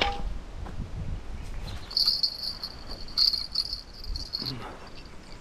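Spinning fishing reel's drag buzzing as a hooked fish pulls line off it. The buzz starts about two seconds in, pulses a little louder a few times and stops abruptly after about two and a half seconds.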